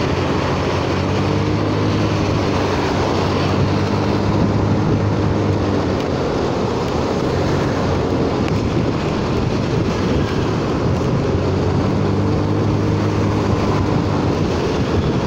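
Honda Forza 300 scooter's single-cylinder engine running at riding speed, its hum shifting slightly in pitch with the throttle, under a steady rush of wind and tyre hiss on a wet road.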